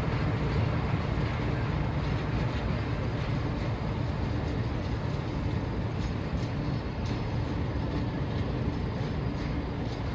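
Diesel locomotive running under power at the rear of a short passenger train as it pulls away. A steady low engine rumble mixes with rail noise and fades slowly with distance.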